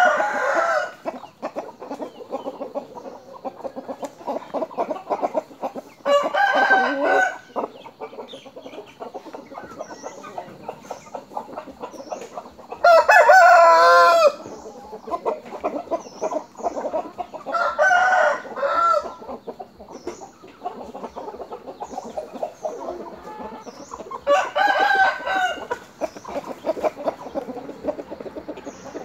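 Gamecock roosters crowing, about five long crows spaced several seconds apart, the loudest in the middle, with clucking between the crows.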